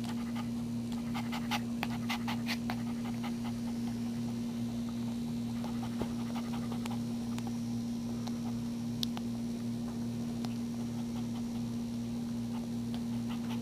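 A whelping mother dog panting in quick short breaths, clearest in the first few seconds, over a steady low hum.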